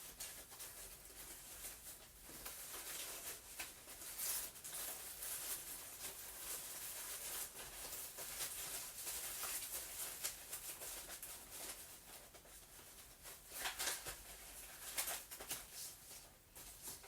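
Sheets of scrap paper being handled and shuffled through, rustling faintly, with a few louder crinkles late on.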